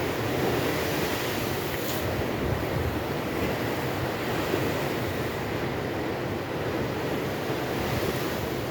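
Storm waves breaking and washing against an embankment, a steady rushing roar, with wind buffeting the microphone.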